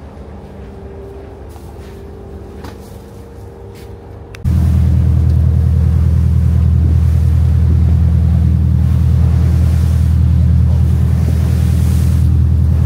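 Boat engine running steadily with a low hum, suddenly much louder about four and a half seconds in.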